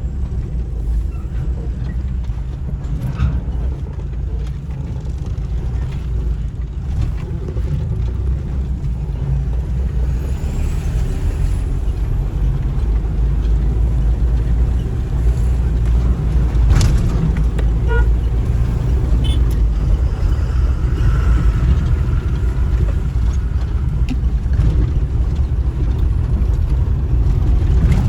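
Steady low rumble of a road vehicle on the move: engine and road noise, with a few faint clicks and knocks.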